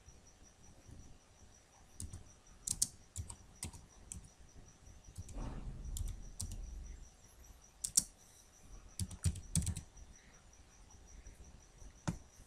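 Computer keyboard being typed on: irregular short runs of key clicks with pauses between them.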